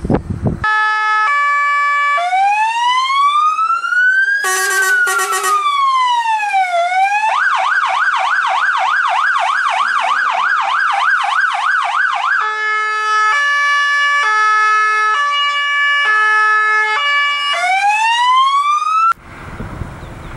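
Fire engine's electronic siren cycling through its tones: a two-tone hi-lo, a slow rising and falling wail, a short buzzy horn burst, a fast yelp, more two-tone patterns, and a last rising wail. It cuts off suddenly near the end, leaving wind noise.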